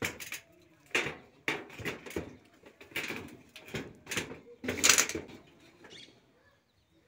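Bamboo poles knocking and scraping against corrugated metal sheeting, making a series of rattling clanks about every half second to a second. The loudest comes about five seconds in, and the clanks die away shortly after.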